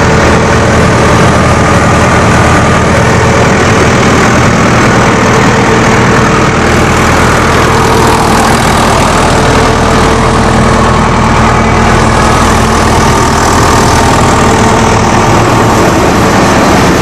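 Preet 6049 tractor's 60 hp diesel engine running steadily at about 1100 rpm under load, driving a size-8 rice mill. The mill's belts and pulleys whir along with the engine in one loud, even drone.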